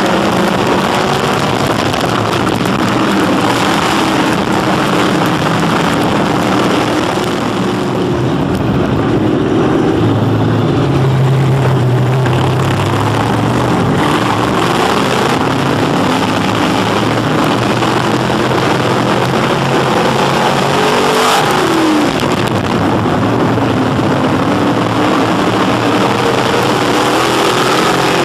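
Dirt-track Sportsman modified race cars' crate V8 engines running hard at close range, their pitch rising and falling, over a constant rush of noise.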